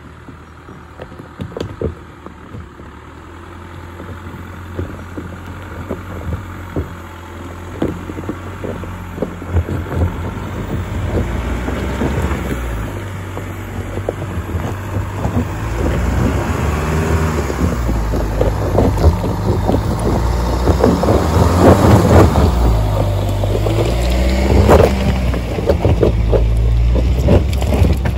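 2021 Land Rover Defender 110 crawling down a rocky track, its engine a low steady rumble that grows louder as it nears and passes close, loudest about three-quarters of the way through. Its tyres crunch and crack over loose stones throughout.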